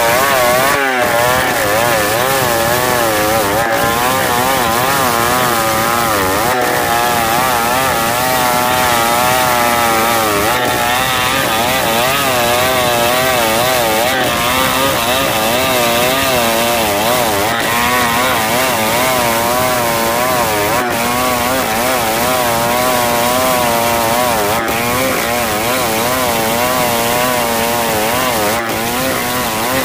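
Large two-stroke chainsaw running under load while ripping lengthwise through soft pulai (kayu susu) wood, its engine pitch wavering up and down repeatedly as the chain cuts.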